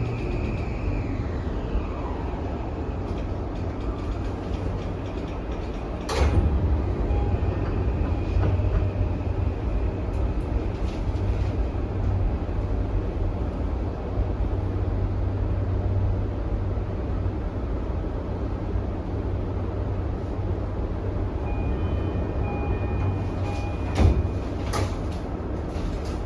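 Toei 5500 series electric train running, heard from inside the car: a steady rumble of wheels on rail. The high whine of its Mitsubishi full-SiC VVVF inverter slides down and fades in the first couple of seconds, and a steady whine comes back near the end. Two sharp knocks come from the wheels and track, about six seconds in and near the end, the second one the loudest.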